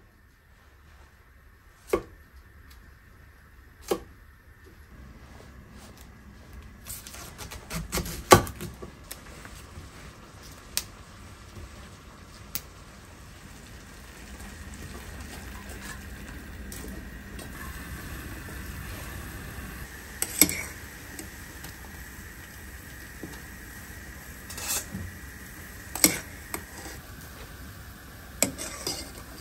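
A kitchen knife cuts broccoli on a wooden board, giving a few sharp knocks about two seconds apart. Then comes a steady hiss from the pot of water heating on the gas hob, which slowly grows louder, with occasional clinks and knocks of the pot and a stainless strainer.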